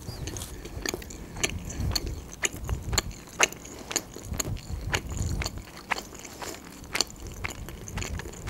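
Close-miked chewing of a mouthful of pizza: irregular mouth clicks and smacks, several a second.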